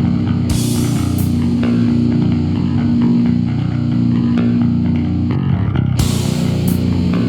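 Instrumental death metal from a mid-1990s cassette demo: distorted electric guitar and bass riffing over drums, with cymbal crashes about half a second in and again near the end.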